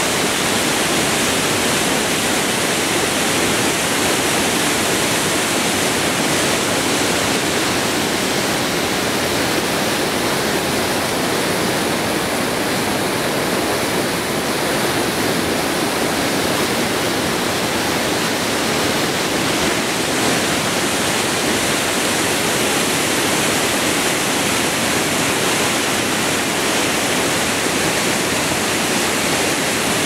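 Rushing river water churning through whitewater: a loud, steady rush with no breaks.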